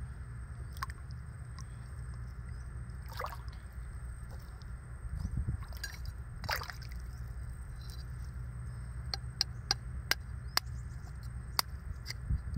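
Shallow water sloshing as hands and a metal hook work a clump of oysters on the bottom, over a steady low rumble. Scattered sharp clicks of the hook knocking against the oyster shells, several close together near the end.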